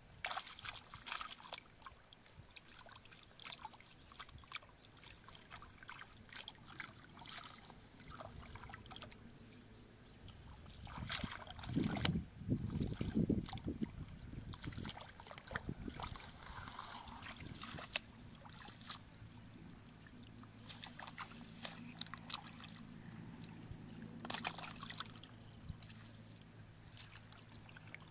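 Shallow muddy water splashing and trickling as hands grope through it and feet wade, in a string of small sharp splashes, with a louder bout about twelve seconds in.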